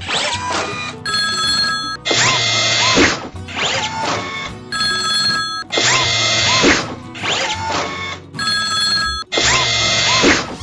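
Looped cartoon background music with a bell-like ringing chime that comes back about every three and a half seconds, three times.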